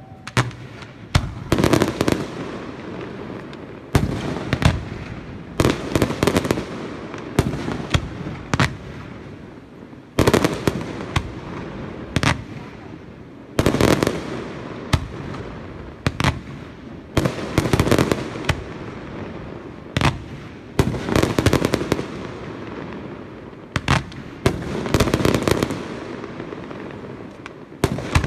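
Aerial firework shells from a Pirotecnia Ferrández display bursting in steady succession: sharp bangs about every second, often several close together, with crackling from the bursting stars in between.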